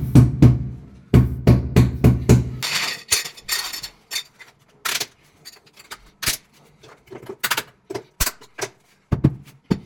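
White rubber mallet tapping a 60 × 60 cm porcelain floor tile down into its adhesive bed: a quick run of dull thuds over the first two and a half seconds. Then a short rattle and a string of sharp clicks as the orange plastic levelling caps and clips are handled and tightened with the levelling pliers.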